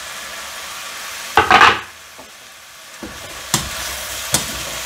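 Vegetables sizzling as they fry in oil in a pot. About a second and a half in comes a brief loud burst as chopped sweet pepper is tipped off a wooden board into the pot. The stirring that follows brings two sharp knocks against the pot.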